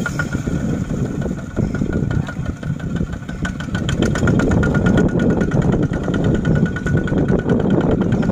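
Kubota single-cylinder diesel walking tractor engine running under load with a rapid, even beat, dragging a loaded trailer through deep mud; it gets somewhat louder about four seconds in.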